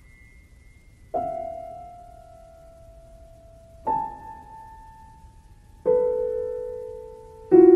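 Solo piano playing a sparse piece written down from a cat's run across a keyboard: four separate notes or chords, each struck and left to ring and die away, about two seconds apart, the later ones lower and fuller.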